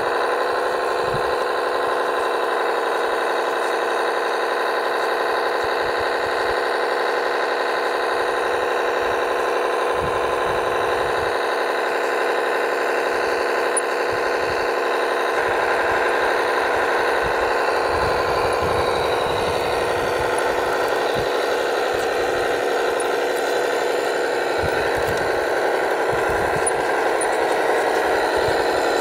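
Radio-controlled model truck machinery running steadily: a constant mechanical whine made of several fixed tones, typical of a model's electric motor and hydraulic pump. Its texture changes slightly about halfway through.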